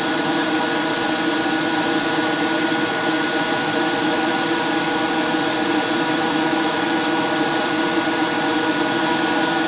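Airbrush spraying paint with a steady hiss of air that cuts out briefly four times and for about a second near the end as the trigger is let off. Under it runs the steady hum of a spray-booth motor with a constant thin whine.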